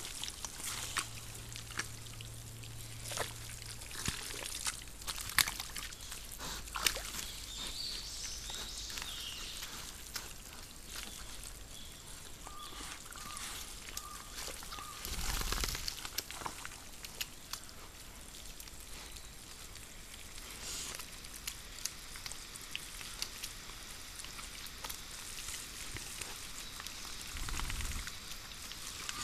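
Wet mud squelching and splashing as an adult wild boar and its striped piglets root and wallow in a muddy forest wallow: scattered wet clicks and slops, with a louder burst of splashing about halfway through and another near the end.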